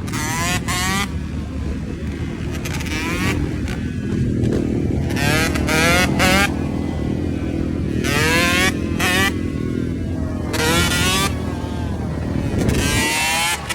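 Yamaha YZ125 single-cylinder two-stroke dirt bike engine, running with about eight quick throttle blips one to two seconds apart, each a short rising rev over the steady low engine note.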